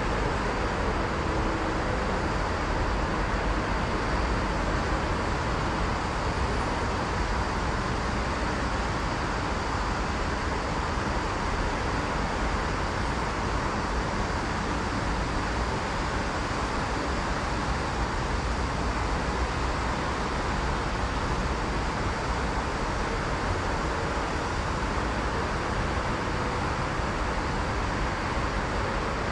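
Steady road traffic noise, an even urban hum with no single vehicle or passing train standing out.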